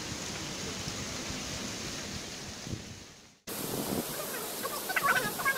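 Steady rush of running water pouring from the base of a mossy stone wall, fading away into a sudden cut about three and a half seconds in. After the cut the water noise comes straight back, with people's voices near the end.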